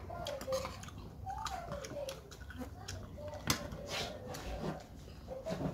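Faint voices in the background, with a couple of sharp clinks of tableware being handled at the table a little past halfway.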